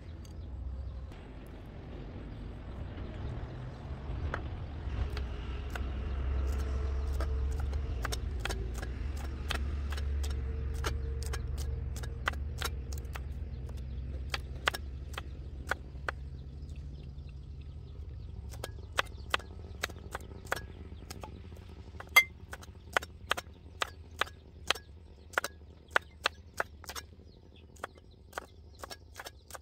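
Large kitchen knife chopping long beans on a round wooden chopping block: quick light taps, then louder separate chops about one or two a second in the second half. A low engine rumble swells and fades over the first half.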